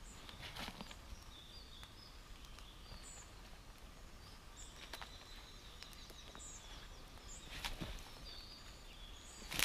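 Small birds chirping, with a few soft scrapes and thuds as a short rail from an old narrow-gauge railway is levered up out of a pit in the soil. A sharp knock comes near the end.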